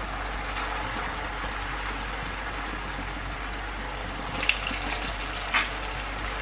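Pumpkin churro dough deep-frying in hot oil, a steady sizzle and bubbling. Two short clicks come near the end.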